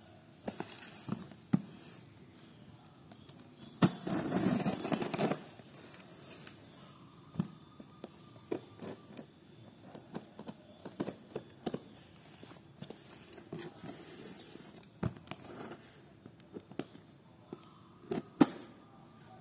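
Hands handling a taped, plastic-wrapped cardboard parcel: scattered taps, scrapes and rubs against the box, with a longer burst of rustling about four seconds in that lasts over a second.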